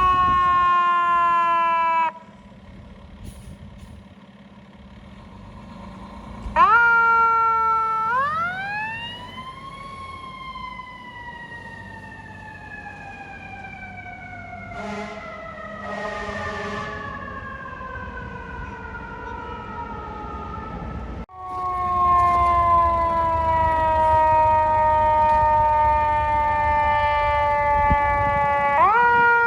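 Fire truck sirens wailing: one winds down and cuts off abruptly, then another winds up and slowly slides down for over ten seconds before a sudden cut, and a third falls slowly and starts to rise again near the end. Truck engine rumble runs underneath.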